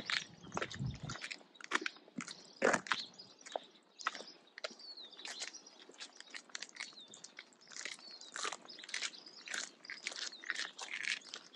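Footsteps crunching in snow at a walking pace, a string of short, uneven crunches, with a brief low rumble about a second in.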